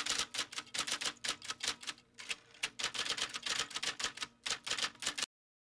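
Typewriter keys clacking in quick succession, several strikes a second, as a typing sound effect. There is a short pause about two seconds in, and the typing stops shortly before the end.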